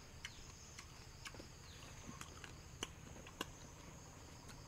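Steady, faint high-pitched chirring of night insects, with a few soft sharp clicks scattered through.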